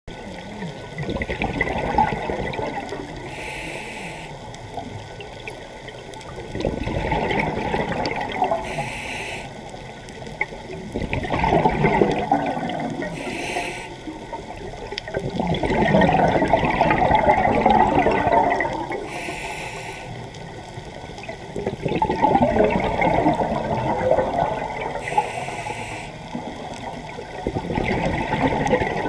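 Scuba diver breathing through a regulator, heard underwater: a short hiss of inhalation five times, about every five seconds, each followed by a long gurgle of exhaled bubbles.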